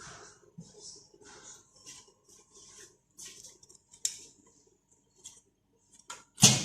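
Irregular light scratching and clicking of small parts and tools being handled on a workbench, with one sharp knock near the end.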